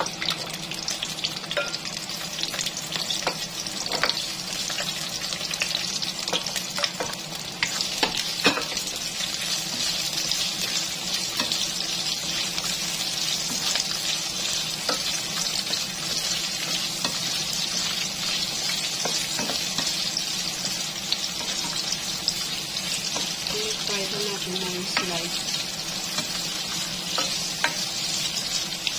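Bell pepper strips sizzling steadily as they fry in hot oil in a non-stick pan. A plastic spatula taps and scrapes against the pan now and then as they are stirred.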